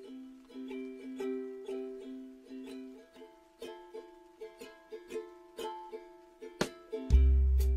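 Background music: light plucked notes in a repeating pattern over held chords, with a deep bass coming in near the end.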